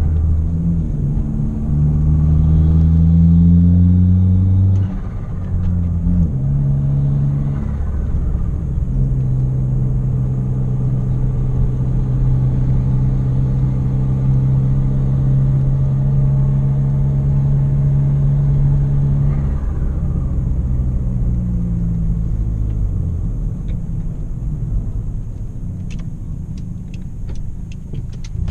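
Hyundai Genesis Coupe 2.0t's turbocharged four-cylinder, heard from inside the cabin, pulling up through the gears with a drop in pitch at a shift about five seconds in. It then cruises at a steady pitch and eases off near the end.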